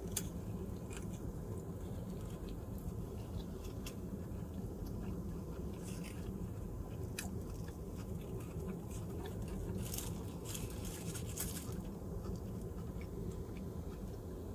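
A person chewing a mouthful of crab sushi burrito in a soy-paper wrap after a bite, with soft mouth sounds and scattered small clicks and crackles, over a steady low hum. A cluster of crackles comes about ten seconds in.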